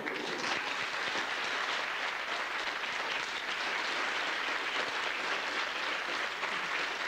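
Theatre audience applauding, a dense, steady clapping of many hands.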